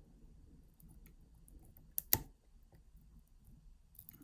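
Lock pick and tension wrench working the pin stack of a practice padlock: faint scraping ticks, with two sharp metal clicks close together about two seconds in.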